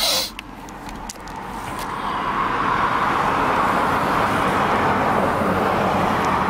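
Road traffic passing close by: tyre and engine noise swells over the first couple of seconds and then holds steady. A brief sharp sound falling in pitch comes right at the start.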